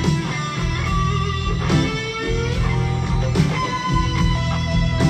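Live rock band playing an instrumental passage, electric guitar to the fore over bass, with a slow, steady beat.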